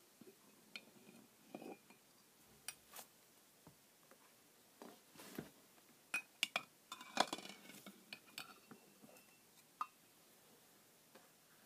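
Metal spoon clinking and tapping against glass mason jars of water as eggs are scooped out: irregular light clinks, busiest around the middle, a few with a short glassy ring.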